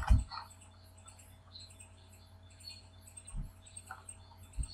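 Computer keyboard and mouse: a last keystroke thump at the start, then a few soft clicks and thumps, two of them about three and a half and four and a half seconds in, over a faint steady hum.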